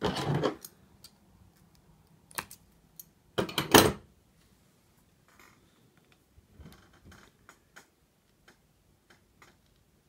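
Light clicks and knocks of a spring-loaded fiber optic stripping tool and hands working on a tabletop, with a sharp click about two and a half seconds in and one louder clatter about a second later, then scattered faint ticks.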